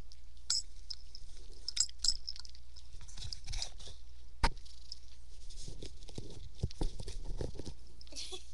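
A small pet gnawing and scrabbling at a wooden treat box: irregular crunches, scratches and small clicks, with one sharper knock about four and a half seconds in.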